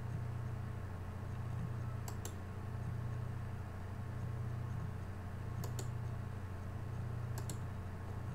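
Computer mouse clicking three times, each a quick double click, over a steady low electrical hum.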